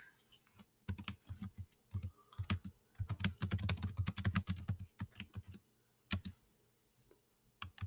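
Typing on a computer keyboard: a run of quick key clicks for about five seconds, then a pause broken by a couple of single keystrokes near the end.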